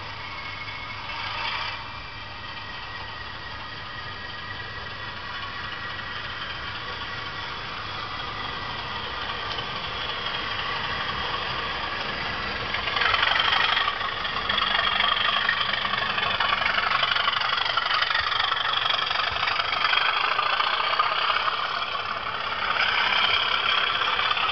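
Bachmann Class 37 model diesel locomotive's sound fitting playing diesel engine sound through its twin speakers. The engine sound grows louder as the model approaches, and steps up sharply about halfway through.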